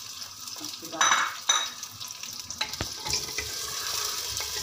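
Chicken pieces frying in hot oil with onion in a clay handi: a steady sizzle with two louder sizzling surges about a second in. From the middle on, a wooden spatula stirs the pieces, with a few sharp knocks against the clay pot.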